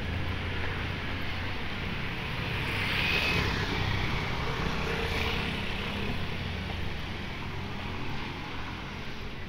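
A motorcycle engine passing close by, growing louder about three seconds in and then fading, over a steady low engine hum.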